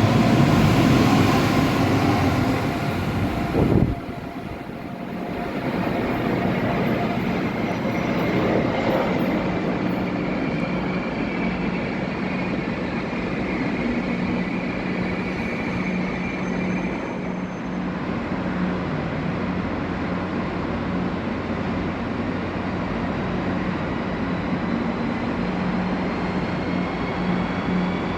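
Train noise at a station platform. It is loud for the first few seconds and drops off abruptly, then settles into a steady rumble with a low hum. A faint high whine rises slowly near the end.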